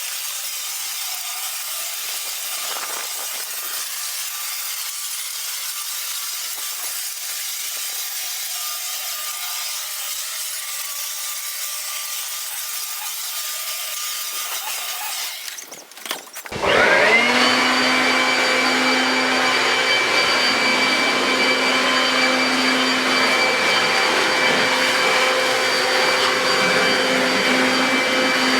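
Toro Super Blower Vac electric leaf blower running with a steady airy rush. About 16 seconds in it drops briefly, then comes back much louder, its electric motor whine rising quickly and settling at a steady high pitch.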